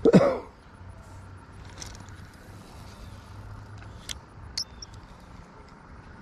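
A spinning rod and reel being cast and handled: a brief loud rush of noise at the start, then a few faint sharp clicks from the reel as the line is taken up.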